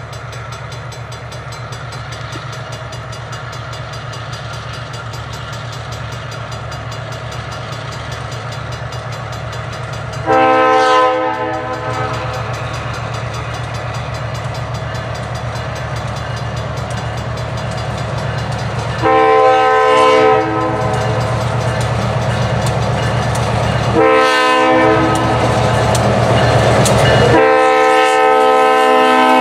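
Morristown & Erie #20 diesel switcher approaching, its engine running steadily and growing louder as it nears. It sounds its air horn in the grade-crossing signal: two long blasts, a short one, then a long one held as the locomotive arrives at the crossing near the end.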